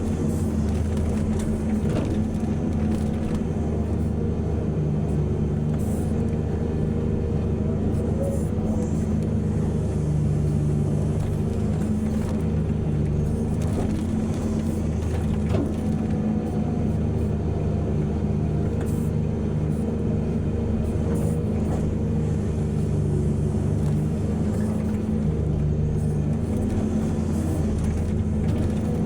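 Heavy diesel excavator and dump-truck engines running steadily under load, a deep, even drone, with a few faint knocks.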